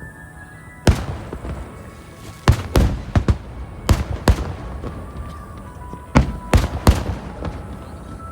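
Aerial firework shells bursting: about nine sharp bangs, some in quick pairs, over faint music.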